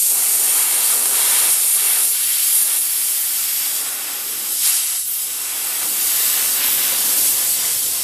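Air hissing steadily out of a nail puncture in the inner shoulder of a light-truck tire, the tire losing pressure through the open hole left by the pulled nail. The hiss briefly weakens about four seconds in.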